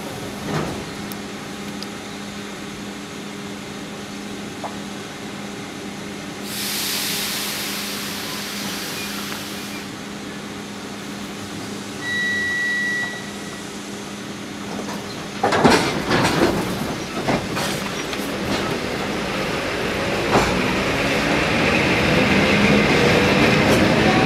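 Suburban electric multiple unit at a platform: a steady hum from the standing train, a burst of air hiss, a short high beep, then a series of clanks about two-thirds of the way in as it starts moving. A rising electric whine grows louder near the end as the train accelerates away.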